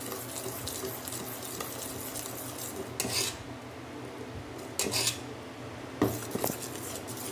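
Steel ladle beating thin dosa batter in a glass bowl: a steady stirring and slopping, with the ladle clinking and scraping against the bowl a few times, about 3, 5 and 6 seconds in.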